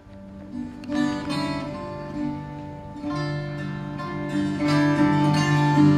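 Viola de cabaça plucked, picking a melody over sustained low notes; it starts softly and grows louder about a second in.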